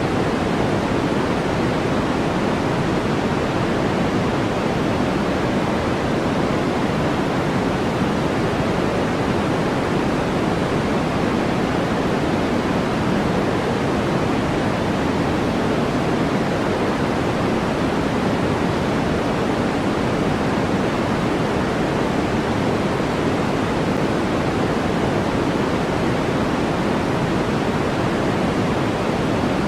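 Steady synthetic white noise for sleep masking: a constant, unchanging hiss, fuller in the lows and mids than in the highs.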